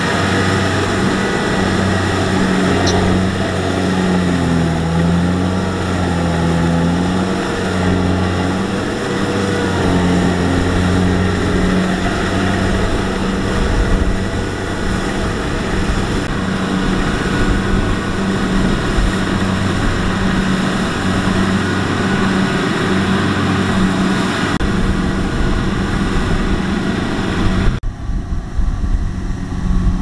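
Kubota rice combine harvester running steadily under load as it cuts and threshes rice: a loud, steady engine hum over machinery noise, its pitch wavering a few seconds in. Near the end the sound changes abruptly, its higher part dropping away.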